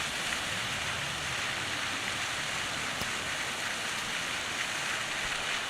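Steady rushing hiss of Helen Hunt Falls' cascade on North Cheyenne Creek, running small at low flow before the snowmelt.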